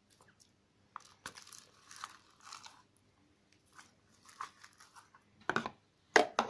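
Beaded (crunchy) slime being squeezed and pulled apart by hand, giving irregular crunchy crackles and pops. The crackles are sparse at first and loudest near the end.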